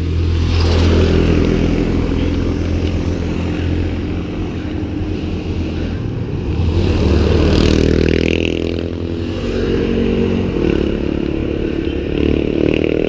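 Wind rumbling over an action camera's microphone on a moving bicycle, with a motorcycle engine running alongside that grows louder about seven seconds in and again near the end.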